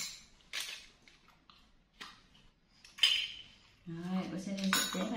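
Tableware clinking in a few sharp knocks, the loudest about three seconds in. From about four seconds a pitched voice sounds steadily.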